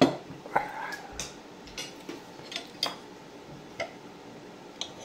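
A short, loud vocal sound right at the start. Then a metal fork and knife clink and scrape against a plate as a burger is cut, with about seven sharp separate clinks.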